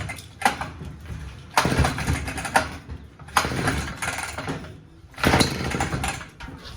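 McCulloch 1-41 two-stroke chainsaw being pull-started, firing in about four short bursts of roughly a second each, then dying back between them. It starts but won't stay running or rev up.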